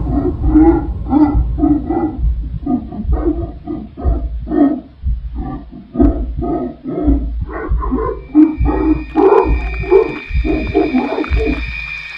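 A creature's growling, grunting voice in rapid rhythmic bursts, about two to three a second, with a low rumble under it. A steady high whine joins about eight seconds in.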